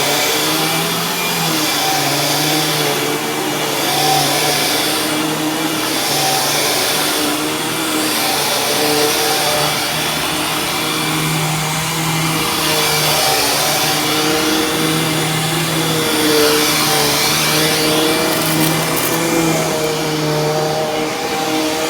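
Dirt Devil Ultra Vision Turbo upright vacuum cleaner running on carpet, a steady motor hum whose pitch wavers slightly up and down as it is worked. Its drive belt is one the owner says already seems to be slipping a little.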